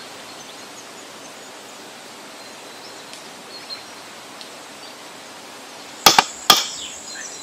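Quiet outdoor ambience with a few faint bird chirps; about six seconds in, two sharp metal clanks half a second apart with a thin ringing after them: a metal ladle knocking against a steel cooking pot.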